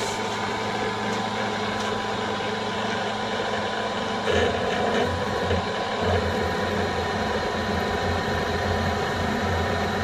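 Mill-drill running at its slowest speed, 75 rpm, a steady motor and drive whine; about four seconds in, a 26 mm annular cutter starts cutting into steel plate and the sound turns rougher and uneven.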